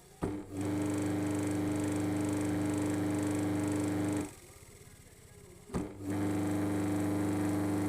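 Washing machine motor humming in two runs of about four seconds, with a pause of about a second and a half between them, each run starting with a short click.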